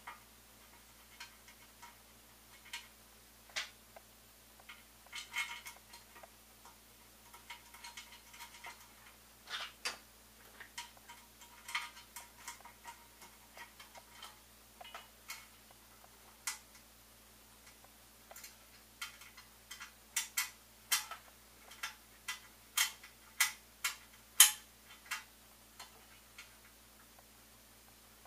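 Irregular light clicks and taps of screws and small parts being handled and fitted by hand to a 3D printer's metal frame. They come faster and louder from about twenty seconds in, with the loudest click near the end.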